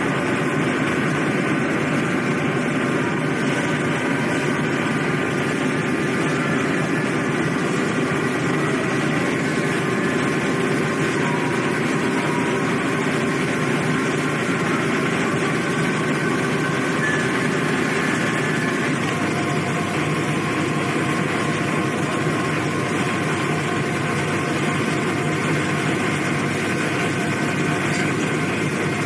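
Car ferry's engines droning steadily on board, a constant mechanical hum with a noisy hiss over it.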